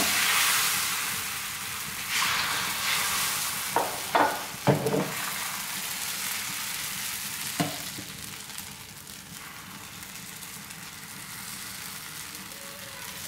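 Thin rice-flour neer dosa batter sizzling on a hot non-stick tawa, loudest at first and slowly fading. A few short knocks come about four to five seconds in and once more near eight seconds.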